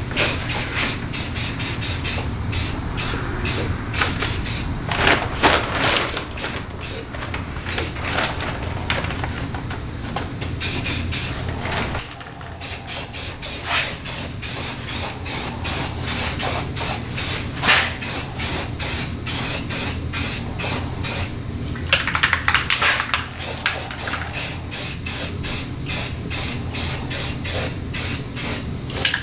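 Primer being sprayed onto car body panels: repeated short bursts of hissing spray, one pass after another, over a steady low hum.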